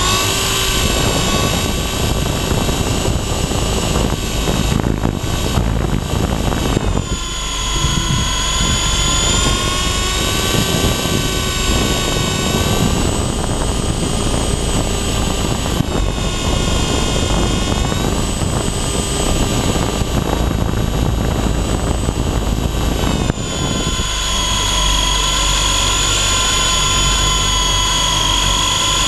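WLtoys V913 electric RC helicopter in flight, heard from a camera mounted on it: a high motor whine over the rush of the rotor wash, the whine's pitch shifting up and down several times.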